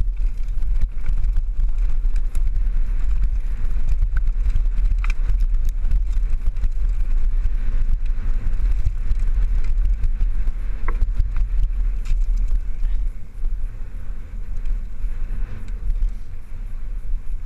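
Mountain bike rolling fast down a rough dirt singletrack: a continuous rumble of wind buffeting the helmet camera's microphone and tyres on dirt and stones, with scattered clicks and rattles from the bike.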